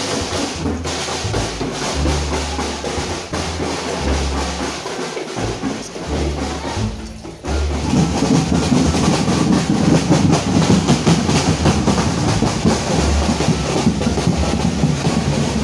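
Drums and struck percussion with a heavy bass beat from a street group waking the neighbourhood for sahur, the pre-dawn Ramadan meal. It gets louder and busier about eight seconds in.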